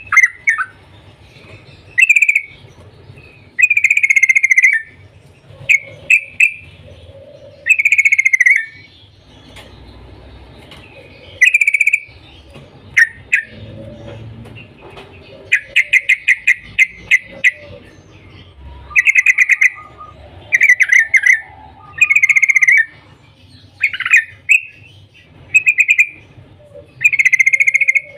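Yellow-vented bulbul (trucukan) calling: short, loud chattering phrases every second or two, with a fast run of rapidly repeated notes about two-thirds of the way through.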